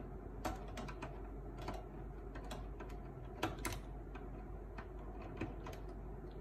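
Irregular light clicks and taps of hands working inside an opened Canon LBP 6000 laser printer, small plastic and metal parts knocking against each other, with two sharper clicks about three and a half seconds in.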